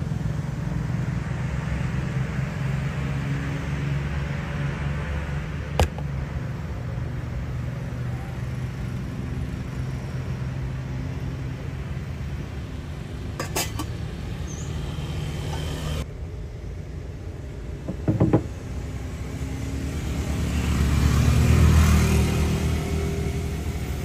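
Street ambience with a steady low hum of motor vehicle engines, and a few sharp clinks of cups and dishes at the coffee cart. Near the end, a vehicle grows louder and fades as it passes.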